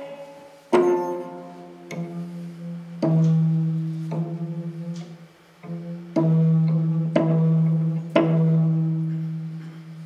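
Recorded sample of a huesocordio, an experimental zither made from vertebrae, played back through a small loudspeaker: about eight string notes struck one after another, each ringing low and fading.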